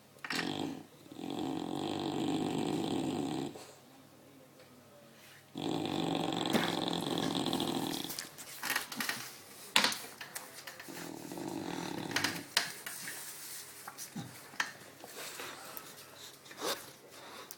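English Bulldog snoring loudly: two long snores of about two seconds each in the first half, then softer, irregular breathing broken by several sharp clicks.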